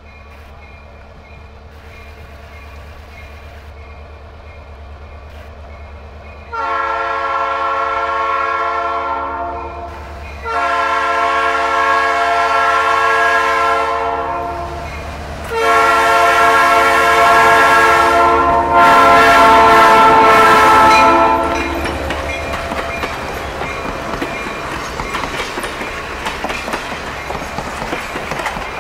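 Diesel locomotive's multi-tone air horn sounding a series of long blasts as the train approaches, over the low rumble of the engine. Then the passenger cars roll past with their wheels clicking over the rail joints.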